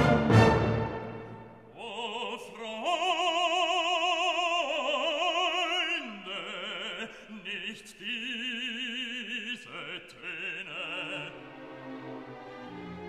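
A band's chord with a cymbal crash rings out and dies away in the first second. Then a male gospel singer sings long held notes with a wide vibrato, moving between a few pitches over faint backing.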